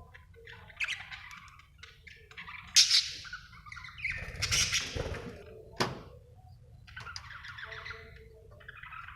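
Budgerigar chirping and chattering in short, harsh calls, with two louder squawks in the middle and a sharp click about six seconds in.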